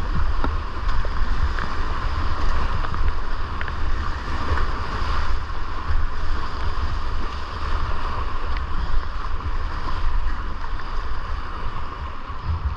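Rushing whitewater of a river rapid heard from a kayak, a steady roar of churning water with a low rumble of wind buffeting the microphone.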